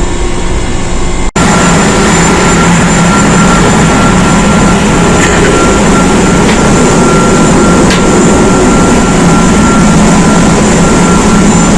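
Loud, steady machinery noise of a ship's engine room by the auxiliary steam boiler: a deep hum with a thin, steady high whine over it. The sound cuts out for an instant about a second in and comes back louder.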